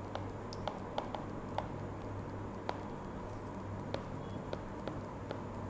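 Pen tip tapping and clicking against a tablet screen during handwriting: about ten sharp, irregular ticks, over a steady low electrical hum.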